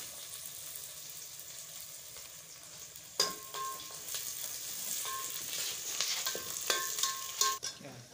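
Finely chopped onions sizzling as they fry in a metal pot. From about three seconds in, a metal ladle stirs them, with several ringing clinks against the pot.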